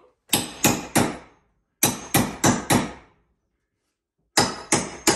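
Hammer striking the end of a steel pry bar, driving it into a stapled pressboard kitchen cabinet to pry it loose. The sharp metal-on-metal blows come in three quick runs of three or four strikes, about three a second, with short pauses between.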